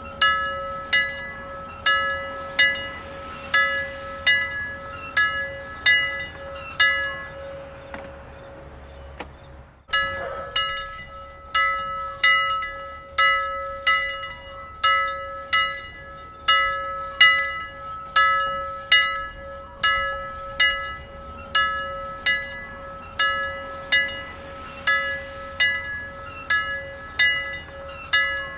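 Church bells ringing, with repeated strikes about one every two-thirds of a second over a steady hum. The strikes stop briefly around a third of the way in, break off abruptly, and then start again.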